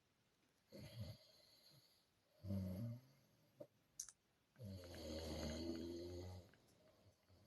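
Someone snoring: two short snores a couple of seconds apart, a couple of faint clicks, then one longer, louder low snore lasting about two seconds.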